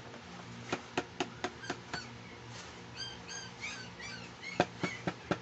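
Small plastic toy pieces clicking and tapping, about four sharp clicks a second, then a quick run of short high squeaks about three seconds in, and more clicks near the end.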